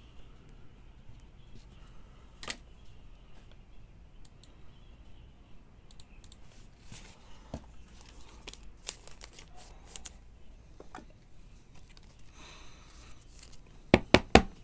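Trading cards and a thin plastic penny sleeve being handled: soft crinkling of the plastic, scattered light clicks and rustles of card stock. Near the end comes a quick run of four sharp knocks, the loudest sounds.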